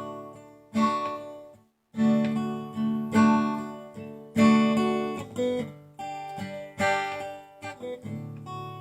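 Acoustic guitar strumming chords between sung lines. Each chord is struck about once a second and left to ring and fade, with a brief full stop just under two seconds in.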